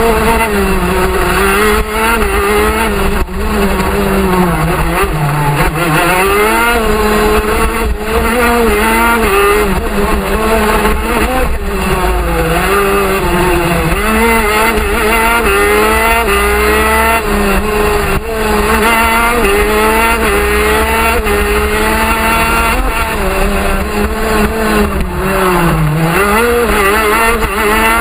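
TM 125 cc two-stroke shifter kart engine at racing speed, heard onboard: the pitch climbs again and again, falling back at each gear change and dipping low when braking for corners, then climbing once more.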